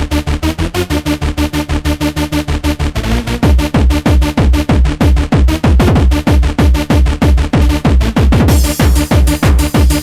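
Fast UK hardcore rave music from a DJ mix, driven by a rapid four-to-the-floor kick drum. About three seconds in, a heavier booming kick with a falling pitch takes over. Near the end, bright hi-hats and cymbals join in.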